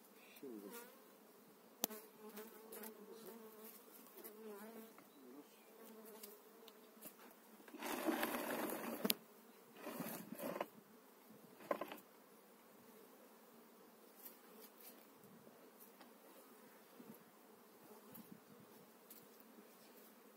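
Honeybees buzzing around an opened hive: a steady, wavering hum. A few sharp knocks and a louder burst of scraping and handling noise about eight seconds in, with a shorter one about ten seconds in, as the wooden hive parts are moved.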